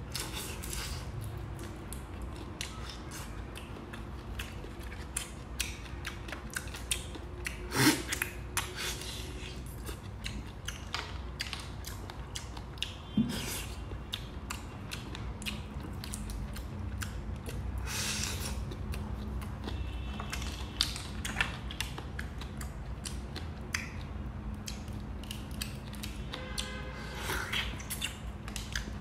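Hands peeling and handling shell-on seafood (shrimp and mussels): shells crackling and clicking irregularly, with mouth sounds of eating. The loudest crack comes about eight seconds in.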